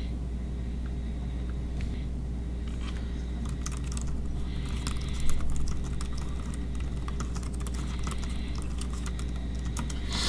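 Typing on a Logitech K380 compact Bluetooth keyboard: a quick run of quiet key clicks from its round keys, starting a couple of seconds in, over a steady low hum.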